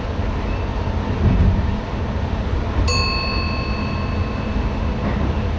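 ICM electric train running on the rails, a steady low rumble heard from inside the driver's cab. About three seconds in, a single bell-like ding rings out and fades over a second or two, typical of the cab's ATB signalling bell.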